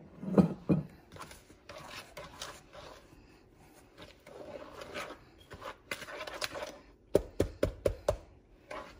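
Hand wire whisk working a thick almond-flour and butter dough in a plastic bowl: irregular scraping and soft tapping, then a quick run of about six sharp knocks near the end.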